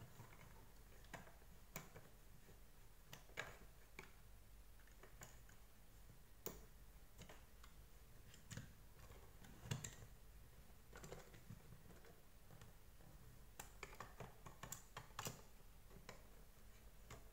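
Faint, scattered clicks and knocks of the plastic housing parts of a Deerma VC25 vacuum cleaner being handled and fitted together by hand. There is a louder knock about ten seconds in and a quick run of clicks near the end.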